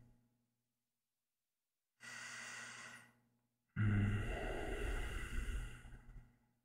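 A man's slow breathing close to the microphone: a soft breath in about two seconds in, then a longer, heavier breath out like a sigh, with dead silence between breaths.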